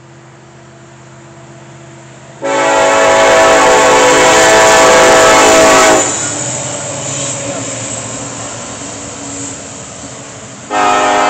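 SD70ACE diesel locomotive's Nathan K5LA five-chime air horn sounding one long blast of about three and a half seconds, a couple of seconds in. The train's engine runs in between, and a second horn blast starts near the end.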